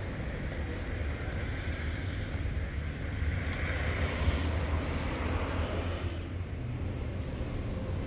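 Steady low rumble of street traffic, with a higher hiss that fades out about six seconds in.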